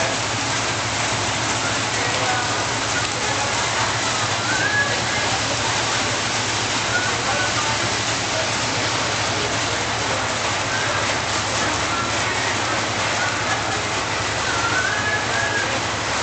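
Heavy tropical downpour: rain pouring steadily as one dense, even hiss, with no let-up or thunderclap.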